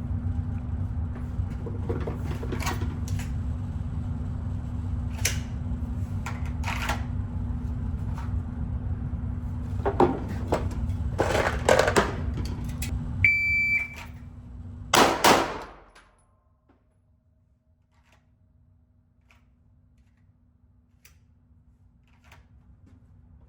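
A shot timer beeps once, and about a second and a half later a 9mm Glock pistol fires two shots in quick succession. Before the beep there is a steady low rumble with scattered sharp bangs and clicks.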